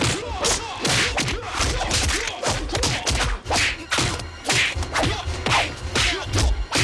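Movie fight-scene punch and kick sound effects: a rapid run of sharp smacks and thuds with swishes, about two a second.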